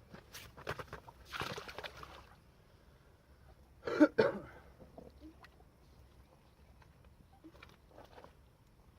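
Water splashing and sloshing as a fishing magnet on a rope is worked in the river, with a few clicks and a short, sharp loud splash or knock about four seconds in.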